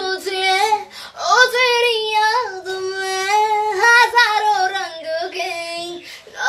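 A young woman singing a melody in a high voice, in a few phrases with long held notes.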